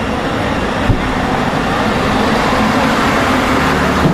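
Steady road-vehicle noise: a low engine hum under a dense hiss, with one short knock about a second in.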